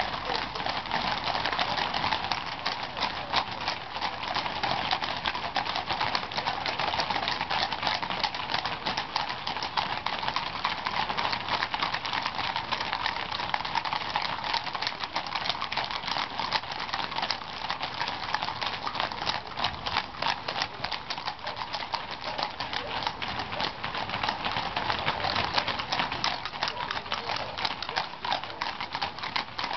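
Many horses walking past on a paved road: a continuous, overlapping clip-clop of hooves on the tarmac.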